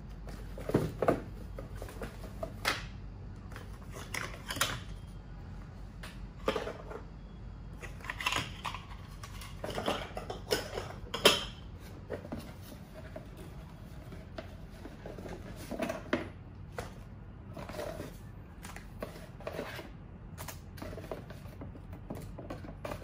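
Irregular knocks, taps and rustles of cardboard boxes, paper packaging and small plant pots being handled and set down on a table-top, the loudest knocks about a second in and about eleven seconds in.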